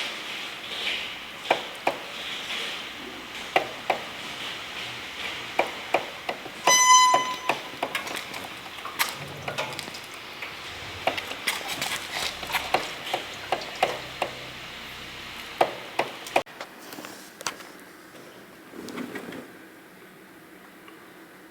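Irregular clicking and knocking from the front sprocket and drive chain of a GV250 Aquila motorcycle being pushed slowly, about one or two clicks a second. The owner traced it to stiff, locked chain links that had not been lubricated. A short beep sounds about seven seconds in.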